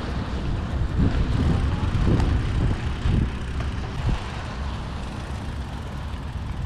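Wind rumbling on the microphone of a mountain bike ridden over rough, sandy trail, with several jolts and rattles from the bike over the bumps in the first four seconds, then a steadier rush.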